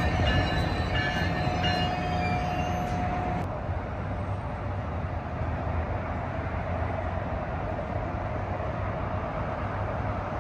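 NJ Transit ALP-46 electric locomotive and its train rolling slowly into the station. For the first few seconds its bell rings at about two or three strikes a second over a brief squeal, and both cut off suddenly. A steady low rumble of the train runs throughout.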